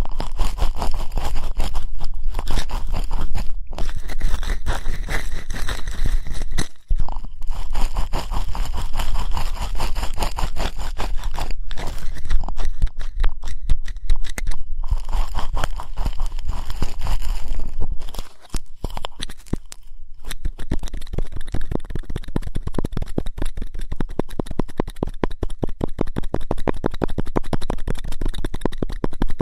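Close ear-cleaning ASMR sounds: an ear pick scraping and crackling in an ear, dense and scratchy. About two-thirds through it pauses briefly, then turns into a quicker, more even scratching.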